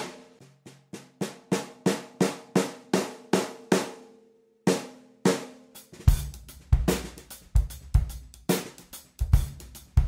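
Ludwig Junior 12-inch kids' snare drum with a Remo Coated Emperor batter head, struck with sticks. It plays single hits about three a second, each ringing with a clear tone over the snare buzz, as the freshly reset snares are tested. After a short pause it goes into a beat from about six seconds in, with a kick drum thumping along.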